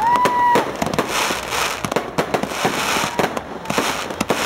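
Fireworks display: a rapid, irregular string of bangs and crackling explosions, with a short high whistle at the very start.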